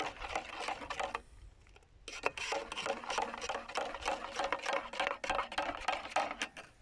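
Metal spoon stirring briskly in a stainless-steel mug, rapid scraping and clinking against the sides as the hot drink is beaten to a froth. A short pause about a second in, then the stirring resumes for several seconds and stops near the end.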